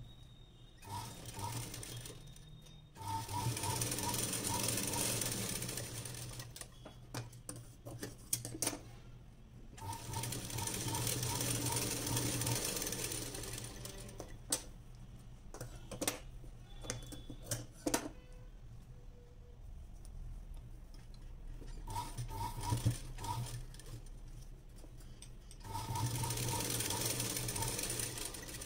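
Black straight-stitch sewing machine stitching fabric in five runs of a few seconds each, the needle chattering rapidly and evenly. It stops between runs, and a few sharp clicks fall in the pauses.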